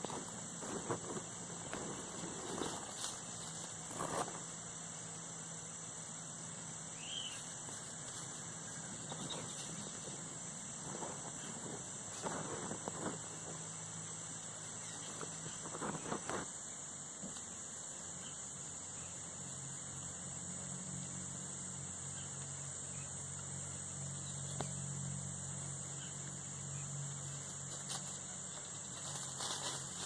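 Steady high-pitched drone of insects, with a few scattered rustles and knocks in dry leaf litter and a low hum that grows in the second half.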